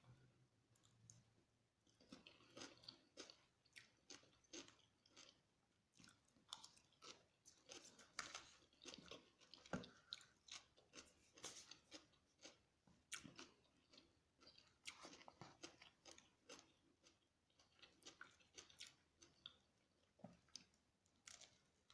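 Faint, close-up chewing and biting of crispy fried chicken: irregular crunchy crackles, a few a second, with one sharper crunch about halfway through.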